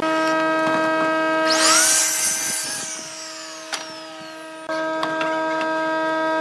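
Sliding miter saw's motor running with a steady whine, then its blade cutting through a wooden board in a short loud burst about a second and a half in. The motor then winds down with a falling whine and the level drops, before the steady whine returns abruptly near the end.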